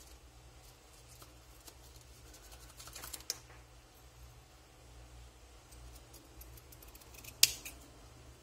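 Scissors snipping through grosgrain ribbon, trimming the ends of a bow: faint snips and ribbon rustle, with a sharp click about three seconds in and a louder one near the end, over a steady low hum.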